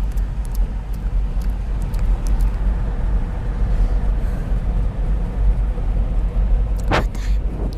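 Steady low rumble under faint, light tapping clicks, with a short breathy sound about seven seconds in.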